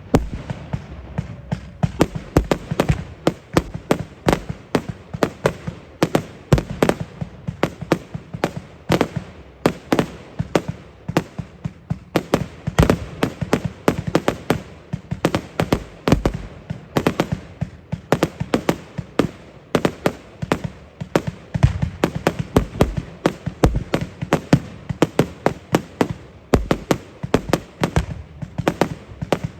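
Fireworks going off in a dense, unbroken barrage of sharp bangs, several a second.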